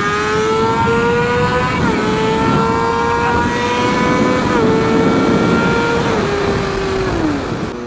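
Honda CBR600RR's inline-four engine accelerating hard at full throttle, over wind rush from riding on the bike. The pitch climbs in each gear and drops sharply at each quick upshift, then falls away near the end as the throttle closes.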